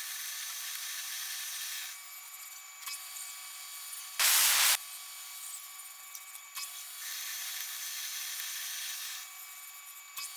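Metal lathe running while an internal threading tool cuts a thread inside a steel piston bore, with a hiss of cutting on two passes, near the start and again from about 7 to 9 seconds. About four seconds in, a loud half-second burst of hiss stands out above everything else.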